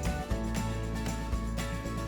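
Background music: a steady bass line under held notes, with short percussive hits.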